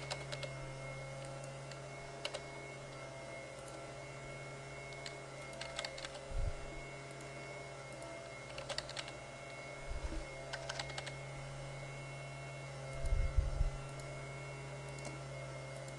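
Sparse typing on a computer keyboard, separate keystroke clicks here and there, over a steady low hum. A few low thumps come in, the loudest a cluster about three quarters of the way through.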